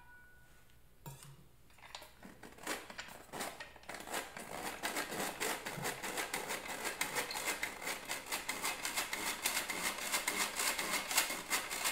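Old hand-crank tin flour sifter being cranked: a fast run of scraping clicks as its agitator works flour through the screen. It starts sparsely a second or so in and becomes dense and steady from about four seconds on.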